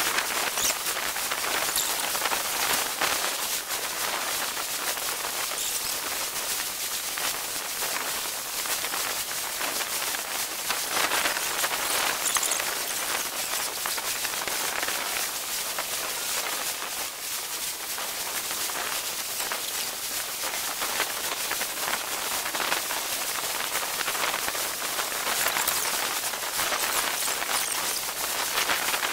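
Surf on a sandy beach: a steady hiss of small waves breaking and washing up the sand.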